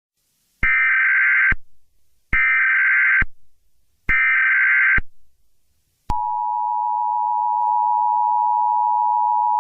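Emergency Alert System header: three short bursts of screeching digital data tones, each about a second long with about a second between them, then the steady two-tone EAS attention signal starting about six seconds in.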